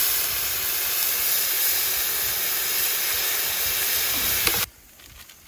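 Water poured onto a hot, greasy griddle pan, hissing and steaming hard as it hits the metal; the hiss stops abruptly near the end.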